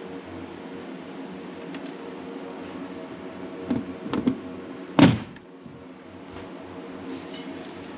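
A few knocks, then one loud thud about five seconds in, over a steady background hum.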